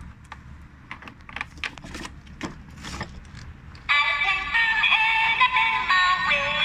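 Background music with synthetic-sounding singing, which breaks off and leaves a few seconds of quieter scattered clicks and taps, then comes back loudly about four seconds in.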